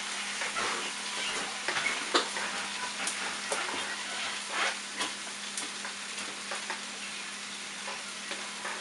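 Gravy sizzling in a hot pan while it is stirred to work out flour lumps, with a steady hiss and a spoon scraping and clicking against the pan now and then.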